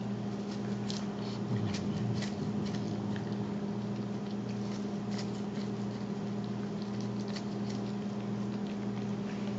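Ragdoll cat eating wet food topped with dried bonito flakes: irregular soft chewing and smacking clicks, over a steady low hum.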